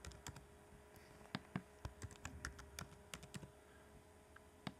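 Faint typing on a computer keyboard: irregular key clicks, several a second, with one louder keystroke near the end. A faint steady hum sits underneath.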